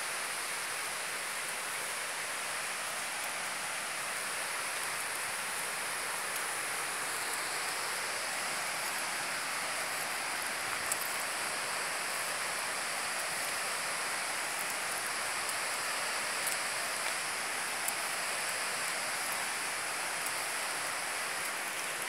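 Steady, even rushing hiss of outdoor ambience, strongest in the high range, with a few faint clicks.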